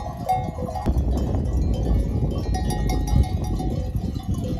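Cowbells on grazing cattle clanking irregularly as the cows move, over a low rumble.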